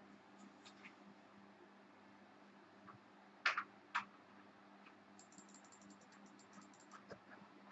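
Faint clicks and ticks: two sharper clicks about half a second apart, a little past the middle, then a fast run of fine ticking lasting under two seconds.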